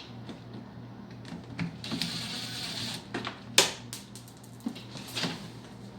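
Impact driver run for about a second to drive a door panel screw, followed by a couple of sharp clicks, over a steady low hum.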